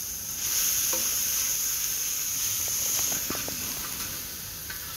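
Pieces of grass carp and silver carp sizzling steadily in hot oil on a plow-disc cooker, with a few scrapes of a metal spatula turning them around the middle.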